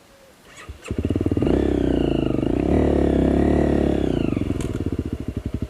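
Dirt bike engine starting up about a second in, revved with rising and falling pitch, then dropping back to a pulsing idle near the end.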